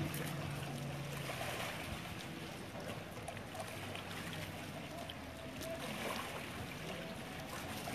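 Open-air riverside ambience: a steady wash of background noise with faint distant voices and a low hum that comes and goes.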